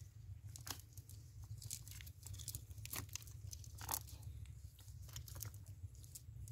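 Cast net being handled and shifted over dry, cracked ground with dead leaves and pebbles: scattered crunches, crackles and small clicks, a few louder ones about one, three and four seconds in, over a low steady rumble.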